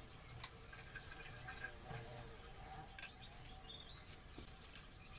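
Wrapper of a dark chocolate bar crinkling and rustling as it is peeled off by hand: a faint, irregular run of small crackles.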